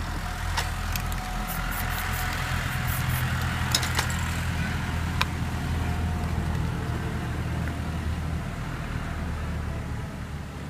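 Steady low rumble of a motor vehicle engine running, with a faint steady hum above it. Several short sharp clicks and ticks come in the first half, from the spray cans and lids being handled.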